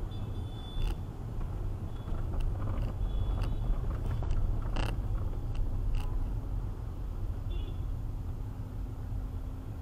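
Low, steady engine and road rumble inside a moving car's cabin, picked up by a windscreen dashcam in slow town traffic, with a few irregular sharp clicks and knocks.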